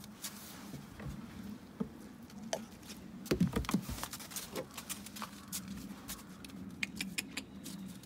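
Scattered light clicks and taps, with a short cluster of louder knocks about three and a half seconds in, over a steady low hum.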